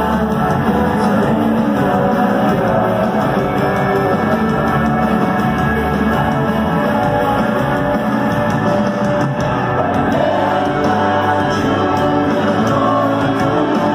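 Rock band playing live, with a singer over electric guitars and drums, recorded from within the crowd.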